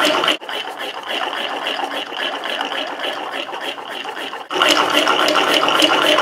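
Homemade lung-powered wooden air engine running: breath pumped through its soda-bottle cylinder drives a styrofoam-ball piston and wooden crank, and the spinning crank and flywheel make a fast, rhythmic rattling clatter. It drops quieter about half a second in and comes back louder near the end.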